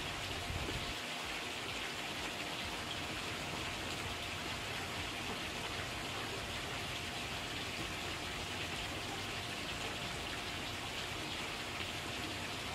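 Steady, even background hiss with no distinct events, and a faint steady hum beneath it.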